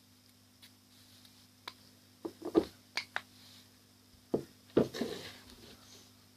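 Slime and its container being handled: a few sharp clicks and taps with short squishy rubbing noises, in two clusters about two seconds in and again near the end.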